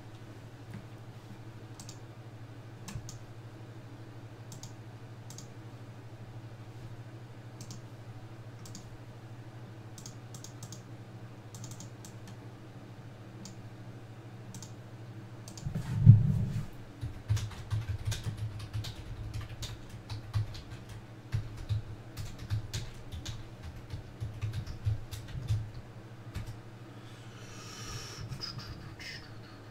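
Computer keyboard typing and clicking: scattered single clicks at first, a loud thump about halfway through, then quicker, denser typing. A steady low hum runs underneath.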